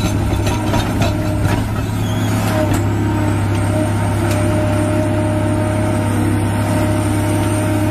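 Caterpillar hydraulic excavator's diesel engine running steadily under load as its ripper tooth tears through layered rock, with scattered knocks and scraping of rock, mostly in the first few seconds.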